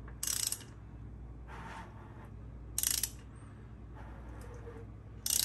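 Hand ratchet clicking in three short bursts about two and a half seconds apart, with quieter rasping between them, as a small-block Ford's crankshaft is turned over by hand to bring the cam lobe up toward mid-lift.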